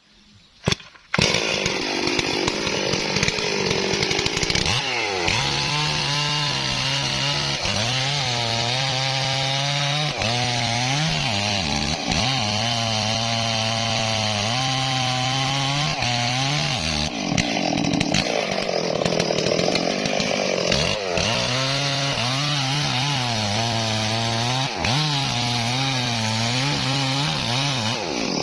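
Stihl MS440 two-stroke chainsaw cutting into a Sendong tree trunk, the engine's pitch dipping and recovering again and again as the chain bites into the wood. It starts about a second in, just after a brief click.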